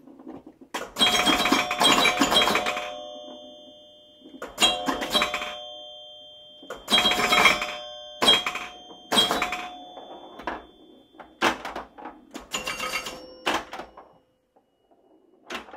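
A run of bell-like dings, about ten at uneven spacing. Each is a short clatter with ringing tones that fade over a second or so.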